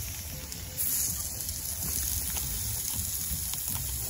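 Chicken skewers sizzling on the hot cast plancha of a wood-fired camp stove, a steady hiss that gets louder about a second in, with faint crackles from the fire.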